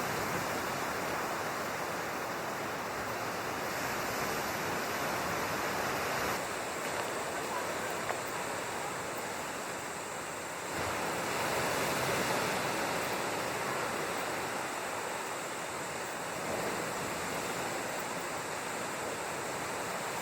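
Steady rushing noise of moving water, with the level shifting abruptly about six and about eleven seconds in.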